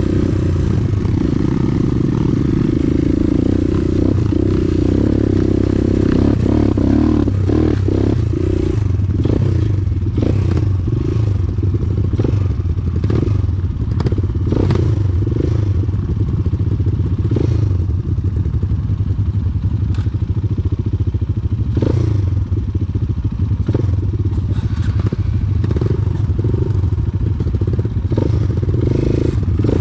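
Motorcycle engine running steadily at low revs, with frequent knocks and rattles from about seven seconds in as the bike rides off-road over rough ground.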